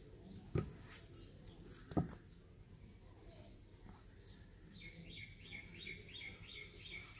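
Two sharp knocks about a second and a half apart as a plastic bottle cap is pressed through rolled dough onto a stone slab. In the second half a small bird chirps in a quick repeated series, about three notes a second.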